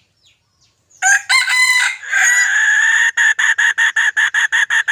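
Loud cicada call starting about a second in: a rising burst that settles into a steady shrill buzz, then breaks into regular pulses about six times a second.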